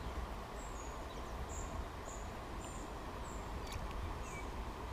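Steady rush of a small stream running over a shallow riffle, with a bird's short high chirps repeating about twice a second above it.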